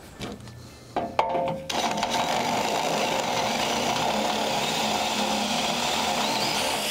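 Cordless drill with a half-inch bit drilling out a bolt hole in a steel loader bucket: a brief spin-up about a second in, then steady drilling through the metal that stops near the end.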